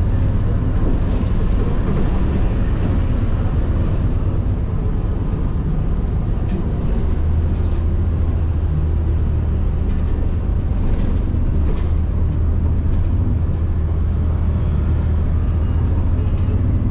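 City bus engine running with road noise, heard from inside the passenger cabin as the bus drives: a steady low drone, with a few faint clicks.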